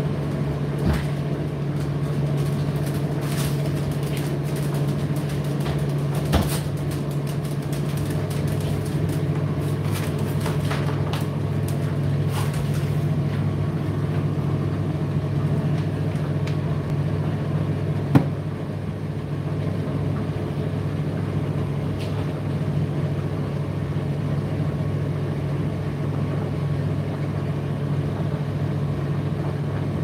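Indesit IDC8T3 condenser tumble dryer running: a steady hum from the motor and turning drum. Light clicks and taps come thick through the first half and then thin out, with a single sharper knock a little past halfway.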